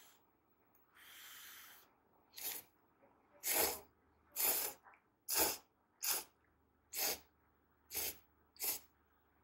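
A person slurping udon noodles in a series of about eight short, loud slurps roughly a second apart, after a longer breathy rush about a second in.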